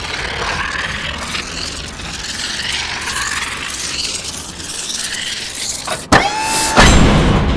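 Sound-art soundscape: a dense, shifting noise texture with wavering pitches, then about six seconds in a sudden tone that drops and holds briefly, followed by a loud rush of noise.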